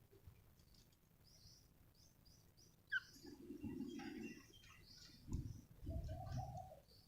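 Budgerigars chirping softly in short scattered notes, starting about three seconds in after a near-silent stretch, with soft rustling and a couple of light knocks mixed in.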